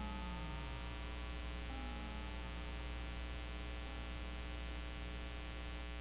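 Steady low electronic hum, with a few faint falling tones over it in the first couple of seconds that die away, leaving the hum alone.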